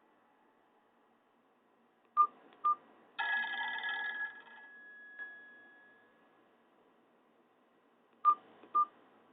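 Nokia 216 phone sounding two short key beeps, then a brief ringtone snippet whose held note fades out, then two more short beeps near the end.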